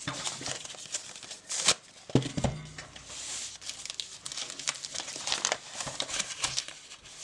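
Decorative paper wrapping crinkling and rustling as it is unwrapped from a book, handled carefully so it can be saved. There are a couple of soft knocks a little over two seconds in.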